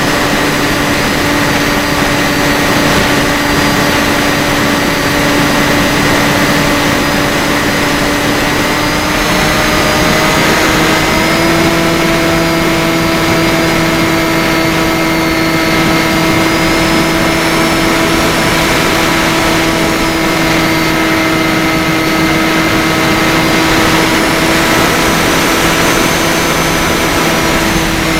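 Electric motor and pusher propeller of a Bixler 3 model plane, running as a steady hum over the rush of air. About ten seconds in, the pitch rises a step as the throttle goes up, then holds.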